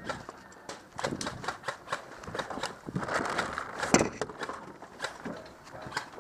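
A quick, irregular run of clicks and knocks, several a second, over rustling, with one sharper knock about four seconds in.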